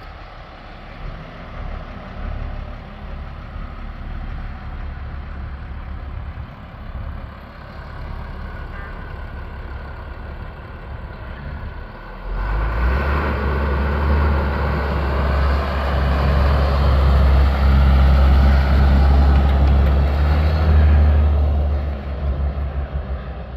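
A 1998 International 4700 box truck's 7.6-litre inline-six diesel running as the truck drives by. It gets much louder about halfway through as the truck comes close, then fades as it pulls away.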